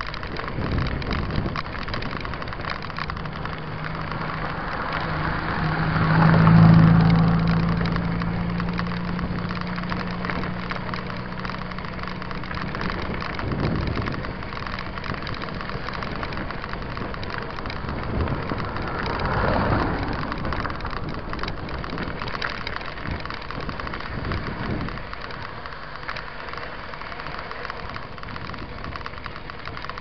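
A car drives past, its engine swelling to a peak about six or seven seconds in and fading away, over steady gravel crunch from mountain-bike tyres on a dirt road. A second, weaker swell comes around twenty seconds in.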